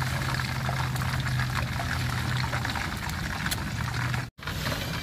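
A whole largemouth bass frying in hot oil in a pan, sizzling and crackling as it is turned with tongs, over a steady low hum. The sound drops out for an instant near the end.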